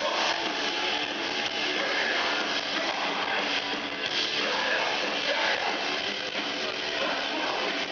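Live metalcore band playing a song without a break, with a keyboard on stage, heard from among the crowd.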